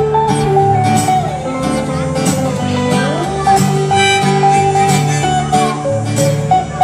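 Live band playing country-style music on guitars, with a held melody line that bends down in pitch and back up a few seconds in.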